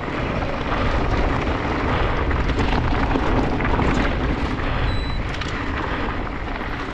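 Mountain bike riding over a loose, rocky trail: a steady rumble of tyres on rock and wind on the action camera's microphone, with small rattles and clicks throughout.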